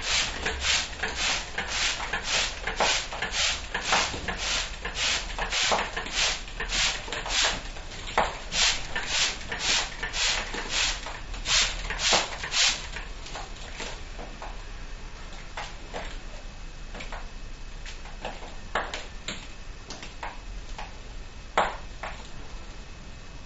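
Hand-held spray bottle misting cockatiels, its trigger squeezed in quick short sprays about twice a second; the spraying stops about halfway through, leaving only a few scattered small clicks.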